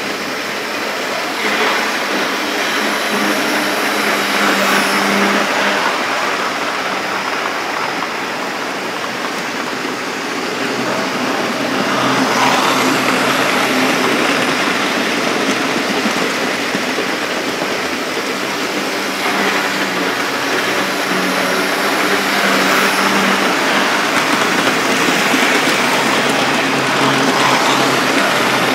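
Several OO-gauge model trains, vintage Hornby Dublo and Tri-ang locomotives among them, running on the layout's track: electric motors humming under a continuous rumble of wheels on rails. The sound swells louder several times as trains pass close by.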